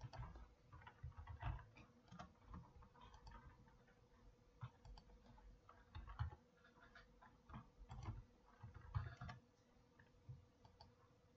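Faint, irregular clicks of computer keyboard typing and mouse clicks, over a faint steady hum.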